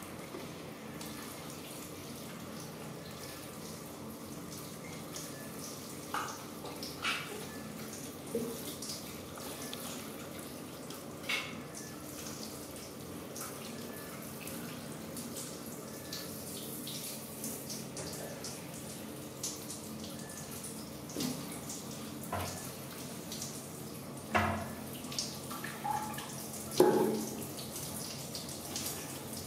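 Water running from a handheld shower and splashing over a wet baby monkey and a plastic toilet lid, a steady spray with a few short, sharper splashes or knocks, the loudest near the end.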